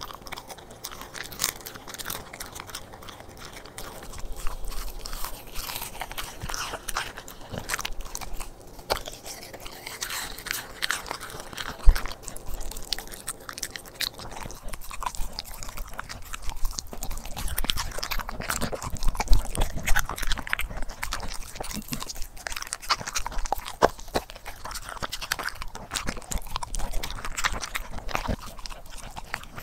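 Corgi eating raw food off a plate: wet chewing and biting of raw meat and organ pieces such as kangaroo liver and pork spleen, with many sharp crunches and clicks of teeth, the loudest about twelve seconds in.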